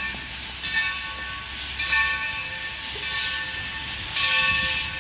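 A train whistle sounding in several short blasts of the same chord, with hissing that swells near the end.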